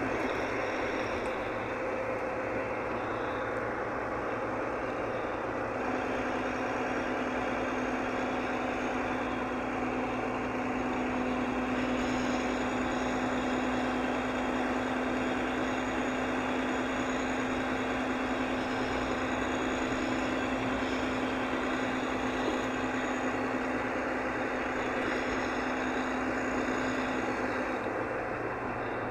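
Volvo B9R coach heard from inside the cabin while cruising at speed: its six-cylinder diesel engine runs steadily under road and tyre noise. A steady hum sets in about six seconds in and fades out near the end.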